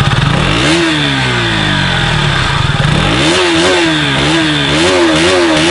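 Engine of a BS6-compliant 2020 KTM Duke 200, a single-cylinder motorcycle, idling and being revved. It gives one rev up and back down, then from about three seconds in a quick run of short throttle blips. The note is a smooth one.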